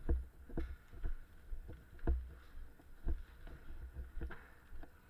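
Dull footstep thuds with light clicks, about two a second, from someone walking with the microphone on them.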